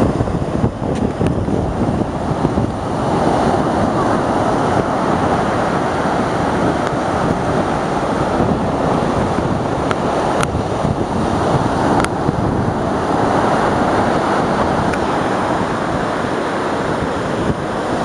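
Ocean surf breaking on a beach, mixed with wind buffeting the microphone: a loud, steady rushing.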